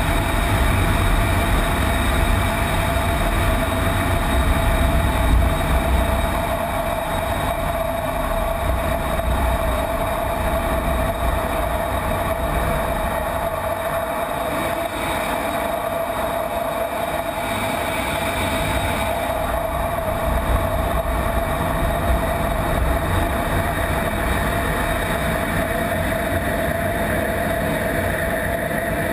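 Steady jet noise inside an F-16 cockpit in flight: engine and rushing air, with a constant whine through it and a low rumble that is heaviest in the first few seconds.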